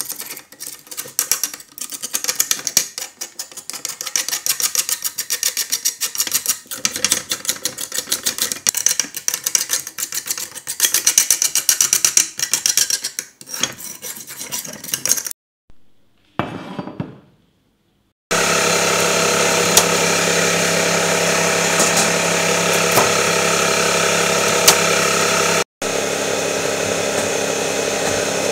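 Small metal parts being handled and worked by hand: rapid, irregular scraping, tapping and clinking. After a short silence, an electric motor starts running with a steady hum, cuts off for a moment near the end and resumes.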